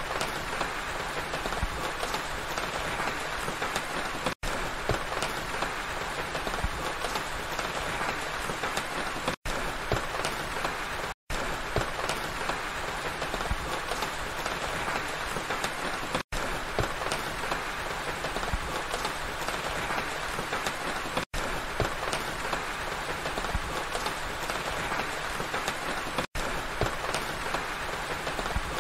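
Steady rain falling, a dense even hiss full of small drop ticks. The sound cuts out completely for an instant about every five seconds.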